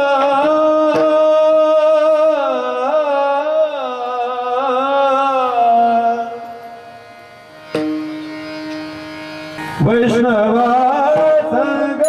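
A male voice sings a Warkari devotional abhang in long, wavering held notes over a steady instrumental drone. About halfway through the voice drops out, leaving the drone and a sharp click, and it comes back in strongly near the end.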